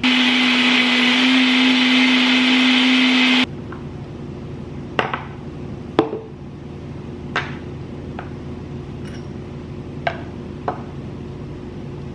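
Personal blender's motor running at full speed, blending a smoothie with ice: a steady pitched whir that stops suddenly about three and a half seconds in. After it, several light knocks of a glass and its wooden lid on a countertop.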